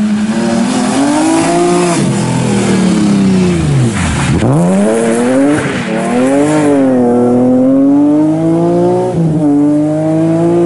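A rally car's engine passes close. Revs climb, then drop steeply about four seconds in as it slows through the corner, while its tyres throw up a loud spray of mud and gravel. It then accelerates away, with two upshifts heard as the pitch steps down and climbs again.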